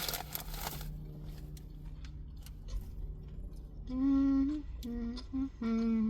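A woman humming 'mmm' with her mouth closed while eating, three drawn-out hums in the second half, the sound of enjoying the food. A short burst of noise comes right at the start.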